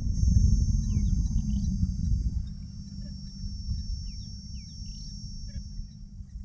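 Insects trilling in a steady high chorus, with a few short falling bird chirps in two clusters, over a low rumble that is loudest in the first couple of seconds and then eases off.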